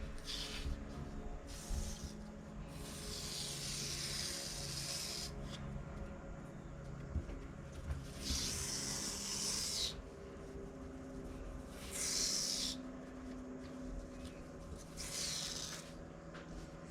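Old cloth being ripped away from an old paper print: raspy tearing in separate drawn-out pulls. The longest pull comes a few seconds in, and shorter ones follow about midway, later on and near the end.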